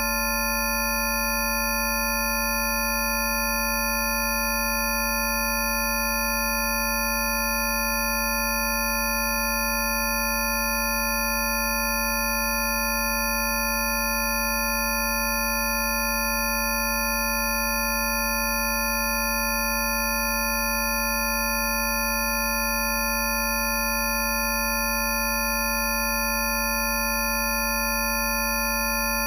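Rife frequency tones: several synthesized pure sine tones held at fixed pitches, from a low hum up to high whistles, sounding together as a steady, unchanging electronic drone.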